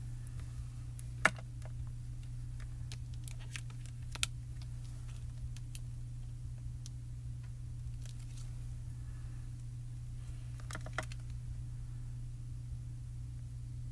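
Scattered light clicks and taps from stamping supplies being handled and set down on a craft mat, the sharpest about a second in and about four seconds in, with a close pair near the end. A steady low hum runs underneath.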